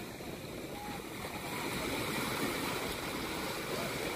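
Small waves breaking and washing on the beach: a steady surf hiss that swells slightly about halfway through.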